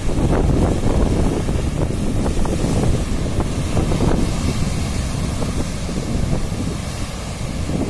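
Rough sea surf breaking and washing up onto the shore, with strong wind buffeting the microphone in a low, fluttering rumble.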